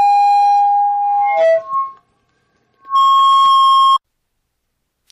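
Microphone feedback: a loud, steady howl at one pitch for about a second and a half, a brief wobble as the pitch jumps around, then after a short silence a second, slightly higher howl for about a second.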